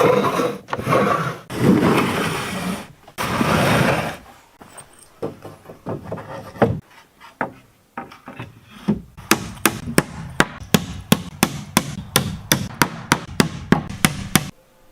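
Hand sawing or rasping through wood in long strokes, then scattered knocks, then a quick, even run of hammer blows on wood, about three or four a second, that stops suddenly near the end.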